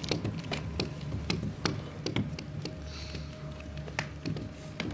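A pen or marker tapping and scratching on paper in quick, irregular strokes as a picture is drawn, over a low steady hum.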